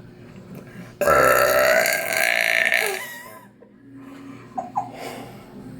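A person's deliberate burp, loud and long. It starts abruptly about a second in, lasts about two seconds and drops in pitch as it ends.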